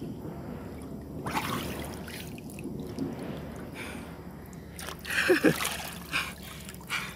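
Lake water splashing and dripping as a person surfaces and wades upright, then lifts a fishing line with a small hooked tilapia out of the water. The loudest splashing comes about five seconds in.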